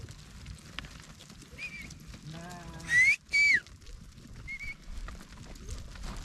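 Two sharp herding whistles about three seconds in, the first rising and the second falling, just after a short wavering call. Fainter short whistles come before and after, over the steady shuffle of a flock of sheep and goats moving over rocky ground.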